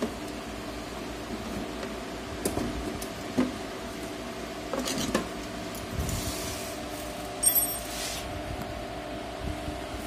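Plastic ink tank of an inkjet printer being lifted out and handled: several knocks and plastic clatters, the loudest near the end, over a steady machine hum.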